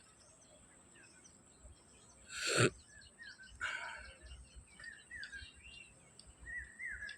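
Small birds chirping with short, repeated rising-and-falling calls. About two and a half seconds in, a brief loud rushing noise, with a weaker one about a second later.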